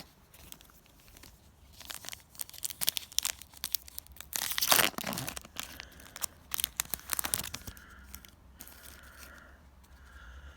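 Trading-card booster pack wrapper being crinkled and torn open by hand, a run of dense crackling that is loudest about halfway through and dies away after about seven seconds.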